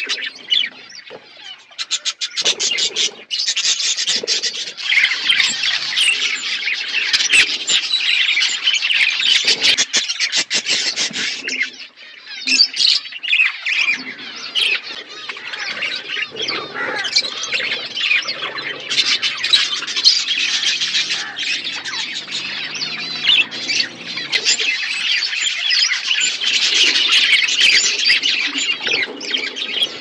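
A flock of budgerigars chattering: many fast, overlapping chirps and warbles, with a brief lull about twelve seconds in.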